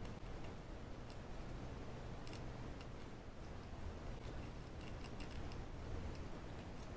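Faint, irregular metallic clicking and scraping of a snake rake being worked over the pin tumblers of a small ABUS padlock, over a low steady hum.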